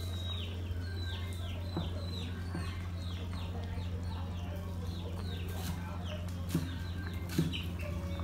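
Chicks peeping over and over, short falling chirps about two or three a second, over a low steady hum. Near the end, a few knocks of a cleaver chopping green onions on a wooden cutting board.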